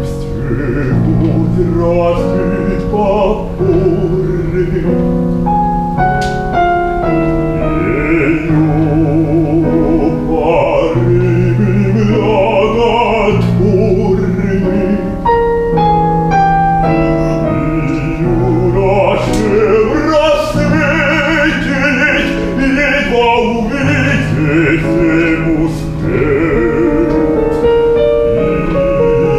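A male opera singer singing in full classical voice with a wide vibrato, accompanied by piano.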